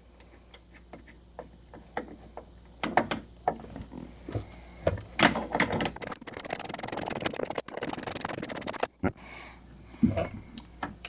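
Scattered light clicks and knocks of tools and parts being handled during a door repair, with about three seconds of denser rattling and scraping in the middle.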